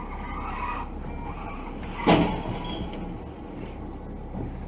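Steady engine and tyre noise of a car driving on a wet road, heard from inside the cabin. About two seconds in, one short, loud thump stands out above it.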